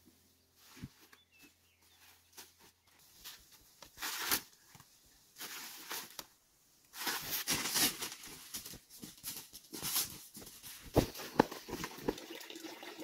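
Rustling and crackling of dry leaves and forest undergrowth, from footsteps and hands handling plants. Sparse at first, then busier from about halfway through, with a few dull thumps near the end.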